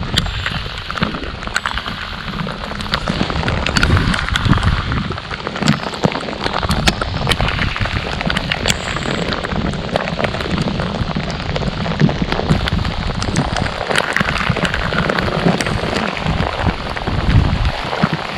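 Rain falling on the lake and the boat, a steady hiss with many sharp little drop ticks and a low rumble underneath.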